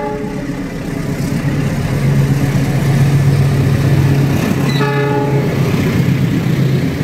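KAI CC206 diesel-electric locomotive passing close with its passenger coaches, its engine running with a loud steady hum. A short blast of its horn sounds about five seconds in.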